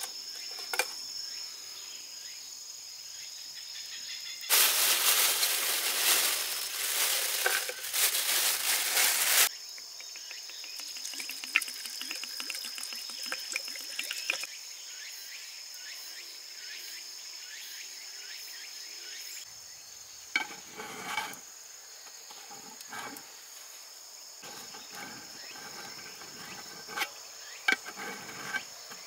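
Insects trilling steadily at two high pitches. A loud rushing, hissing noise starts about four seconds in and lasts about five seconds, followed by fainter rustling and a few scattered knocks.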